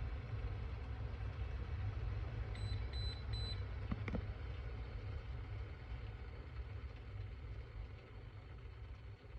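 Three short electronic beeps, then a sharp click, from the control base of a temperature-control electric gooseneck kettle as its buttons are pressed, over a steady low rumble.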